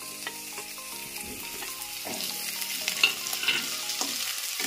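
Sliced onions and green chillies sizzling in hot oil in a kadhai, stirred with a wooden spatula that scrapes and taps against the pan now and then.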